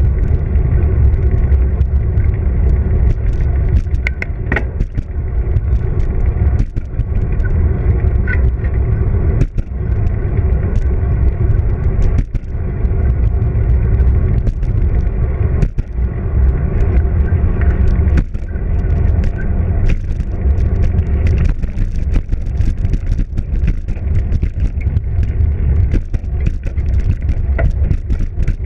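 Wind buffeting the microphone of a bicycle-mounted action camera while riding, a loud steady low rumble mixed with tyre noise on the pavement. Short knocks come every few seconds as the bike goes over bumps.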